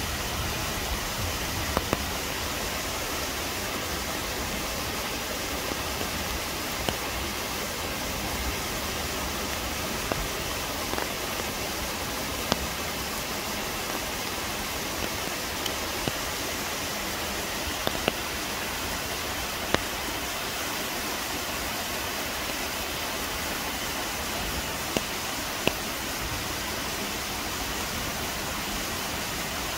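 Steady rushing of Chilyeon Falls, a mountain-valley waterfall, with a dozen or so short sharp ticks scattered through it.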